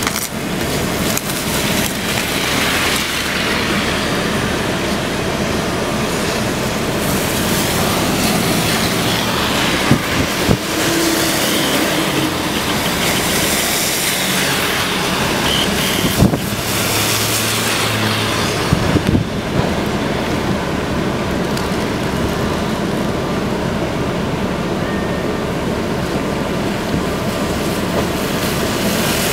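Steady loud rushing of hurricane wind and rain, with a few sharp knocks partway through.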